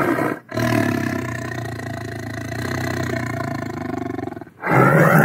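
Big cat roar sound effect: one long, low, growling roar lasting about four seconds, then after a brief break a second, louder roar starts near the end.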